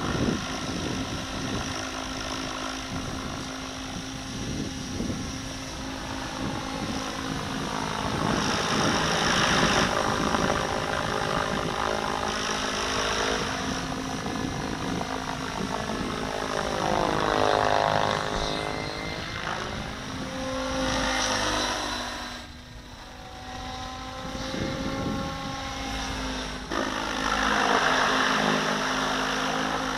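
Radio-controlled helicopter in aerobatic flight: whirring rotor blades and a motor whine that sweep down and back up in pitch and swell several times as it passes close and manoeuvres.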